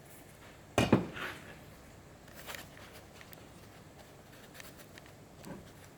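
A sharp clatter about a second in, then a few lighter clinks and knocks: hard metal workshop items being set down and handled.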